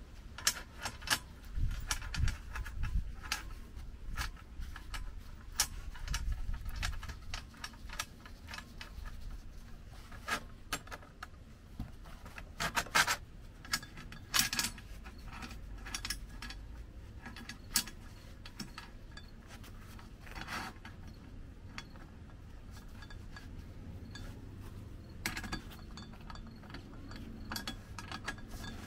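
Nuts and bolts being fitted and tightened onto a steel strut channel by gloved hands and a wrench: scattered metal clicks, light clanks and rubbing scrapes, with a few louder clicks about halfway through.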